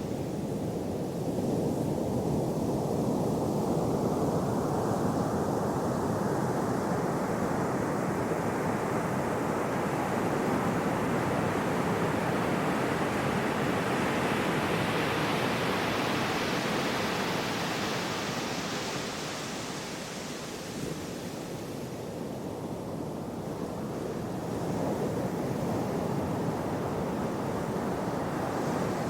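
Gentle sea waves washing in: one long swell of surf builds slowly and then ebbs away, and a new one starts rising near the end.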